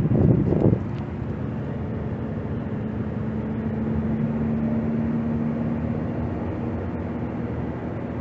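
Wind buffeting the microphone for about the first second, then a steady low mechanical hum of a motor running under a constant hiss.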